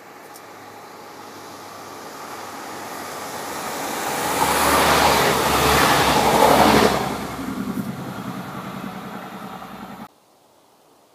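Passenger multiple-unit train approaching and passing underneath: a rumbling rush that grows steadily, is loudest for a couple of seconds as it goes by, then fades as it recedes, with a low steady engine hum under it. The sound cuts off suddenly near the end.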